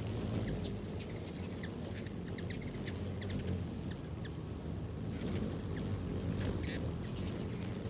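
Ruby-throated hummingbirds giving short, high-pitched chip notes and twitters, scattered irregularly, over a steady low background noise.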